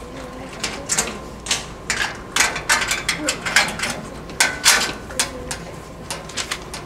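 Padlock on a steel school locker being worked by hand: a run of quick metallic clicks and clacks as the lock is turned, pulled off the latch and the locker door opened.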